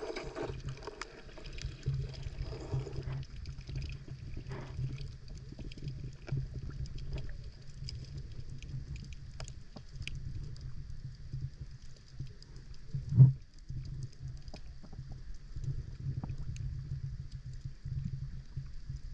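Underwater sound picked up by a submerged camera: a steady low rumble with scattered faint clicks and crackles, and one loud knock about thirteen seconds in.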